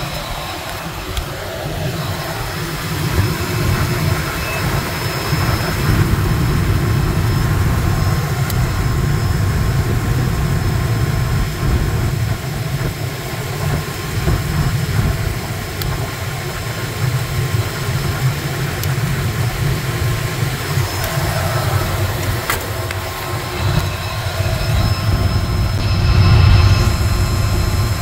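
Belt-driven blower of a rooftop HVAC unit running on its new 5 HP, 460 V three-phase, 1800 RPM motor: a steady low rumble of motor and air, running smoothly, a little louder near the end.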